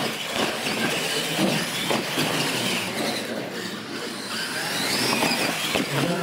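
Radio-controlled monster trucks driving hard: their motors whine, rising and falling in pitch with the throttle, and there are a few knocks as the trucks hit and land off the ramps.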